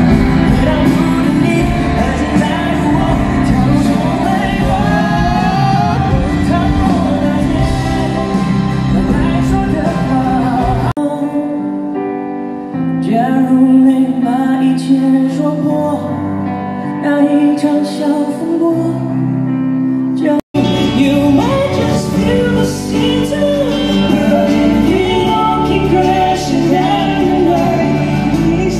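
Live pop concert music heard from the audience: a singer backed by a band and a string section of violins and cello. There is a split-second gap about twenty seconds in.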